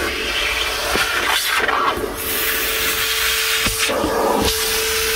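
DeWalt 9-gallon, 5-horsepower wet/dry shop vacuum running, sucking through a crevice tool on the hose as it cleans the truck's carpet. A steady whine comes in about two seconds in, and the rushing air sound dips briefly twice.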